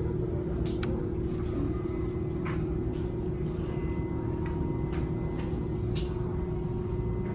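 Steady low hum with a constant tone in it, and scattered light clicks of plastic LEGO bricks being handled and pressed together.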